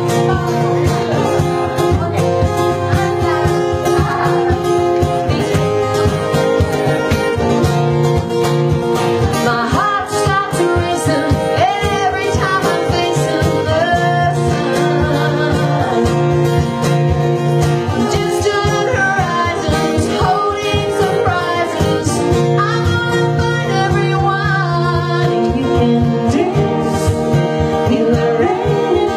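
Live song: a woman sings into a microphone, accompanied by an acoustic guitar.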